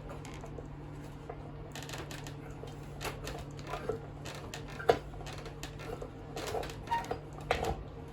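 Scattered light metal clicks and taps of a hand tool working a crimped-in stainless steel heating element out of a cast aluminum grill part. The loudest click comes about five seconds in, with a cluster near the end.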